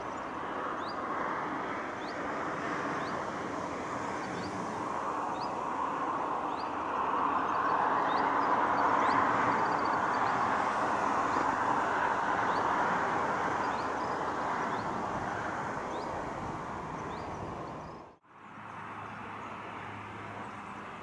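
Jet engines of a Lufthansa Airbus A320 during landing and rollout: a steady roar that swells about seven seconds in and then eases off, with short high chirps repeating about once a second over it. Near the end the roar cuts off abruptly and gives way to a quieter jet sound with a low hum from a business jet on approach.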